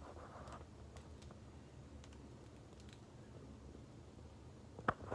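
Quiet room tone with a few faint light clicks, and two sharper clicks close together near the end.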